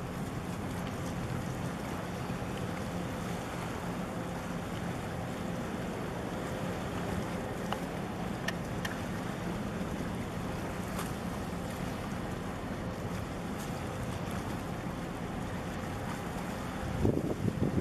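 Steady low engine drone with a faint hum, under wind and water noise. A brief burst of louder noise comes near the end.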